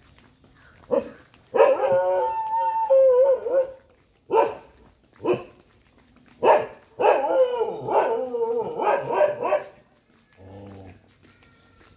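A dog barking in short sharp barks, with two long wavering cries of two to three seconds each, one about one and a half seconds in and one about seven seconds in. The calls stop about ten seconds in.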